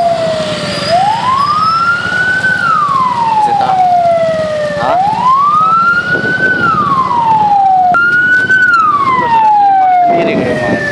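Emergency-vehicle siren in a slow wail, its pitch climbing for about two seconds and sinking for about two, repeated about three times. Partway through, one of the falls breaks off and jumps straight back to the top. A steady low engine and road noise runs beneath.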